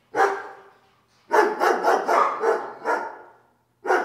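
A dog barking in runs: one bark near the start, a quick string of about six barks from about a second in, and more barks starting again near the end.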